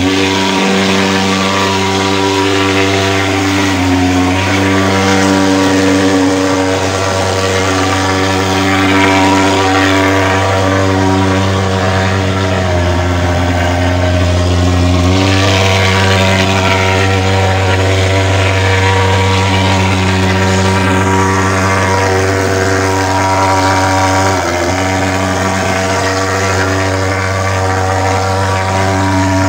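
Portable pulse-jet thermal fogging machine running, a loud, steady buzzing drone as it blows out insecticide fog, its pitch shifting slightly now and then.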